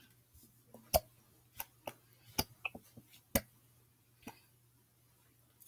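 Sharp plastic clicks of a pump-dispenser bottle of slime activator being pressed, three louder clicks spread about a second apart among several lighter taps.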